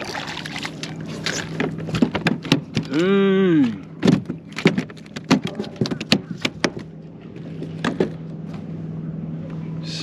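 Knocks and thumps on a plastic kayak's deck as a redfish is swung aboard and flops about, many sharp hits in quick succession. A short rising-and-falling voiced exclamation comes about three seconds in.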